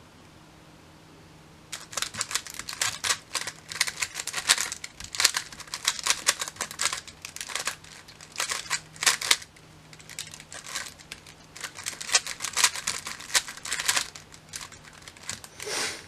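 Magnetic GAN 356 X 3x3 speed cube being turned fast in a timed solve: rapid runs of plastic clicks and clacks as the layers snap round, starting about two seconds in, with short pauses between bursts of turning.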